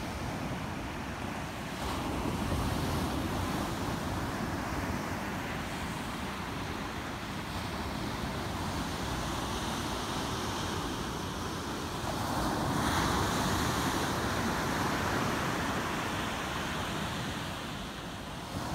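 Ocean surf breaking and washing up a sand beach in a steady rush, swelling louder as a bigger wave breaks about two-thirds of the way through.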